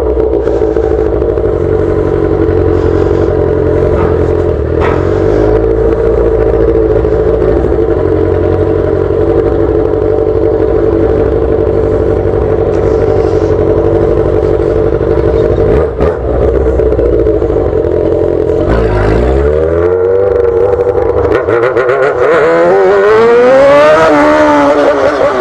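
Yamaha XJ6's four-cylinder engine running through a straight-pipe exhaust, holding a steady note while cruising. The revs drop about nineteen seconds in, then climb in a few rising sweeps over the last few seconds, which are the loudest part.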